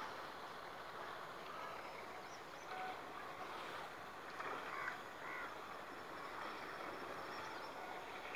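Outdoor pond-side ambience: a steady faint hiss with a few short bird calls, a cluster of them about four to five seconds in.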